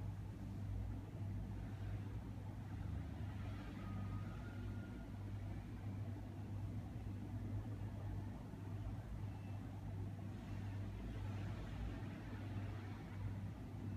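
Steady low background hum with faint hiss and no distinct events.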